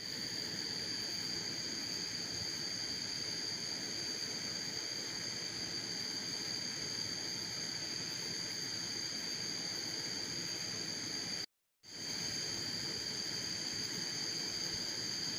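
Steady chorus of night insects, a constant high-pitched shrilling with no change. It cuts out for a moment about eleven and a half seconds in, then resumes the same.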